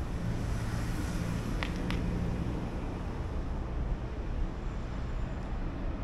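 Street ambience with a vehicle engine running close by, a low steady hum under a noise bed, and two short high chirps about a second and a half in.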